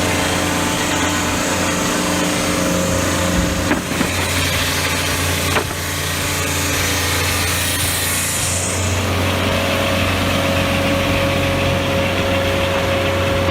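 A portable sawmill's Honda petrol engine running steadily. A high hiss, typical of the blade cutting, fades out about nine seconds in, and two sharp clicks come about four and five and a half seconds in.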